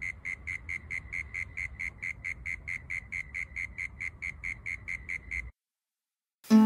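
Cricket chirping steadily, about four short chirps a second on one high pitch, cutting off abruptly after about five and a half seconds. Plucked guitar music starts right at the end.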